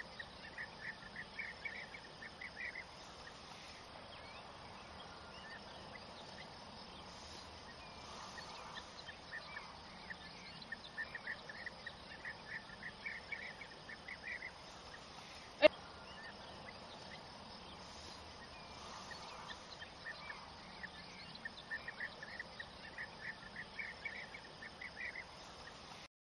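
Countryside ambience: bursts of rapid, high chirping a few seconds long repeat several times over a faint steady insect buzz, with one sharp click a little past the middle.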